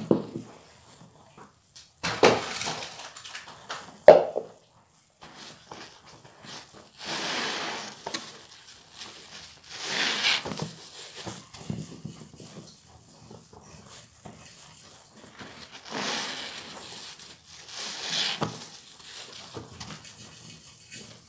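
Soapy sponge squeezed by hand in thick suds, squelching wetly about seven times with a fizzing crackle of foam between squeezes.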